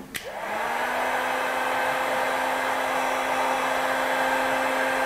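Industrial heat gun: a click, then its fan motor spins up within about half a second to a steady whir of blowing air with a constant hum.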